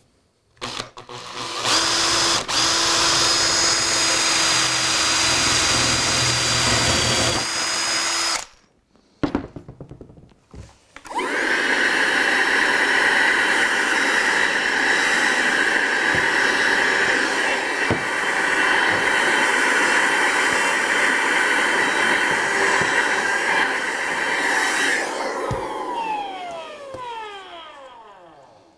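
Power drill boring a 10 mm hole through foam track bed and a wooden baseboard, running steadily for about eight seconds. After a short pause a small vacuum cleaner runs for about fourteen seconds, sucking up the drilling debris, then winds down with a falling whine.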